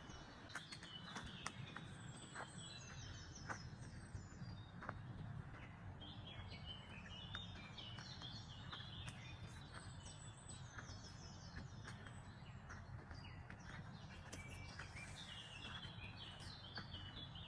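Faint woodland birdsong: a songbird repeats a short phrase of notes stepping down in pitch about four times, over a low steady background of outdoor noise with a few faint clicks.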